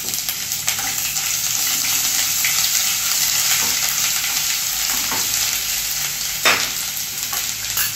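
Ginger-garlic paste sizzling and spattering in hot oil with curry leaves in a kadhai, stirred with a steel ladle. A brief louder scrape or knock comes about six and a half seconds in.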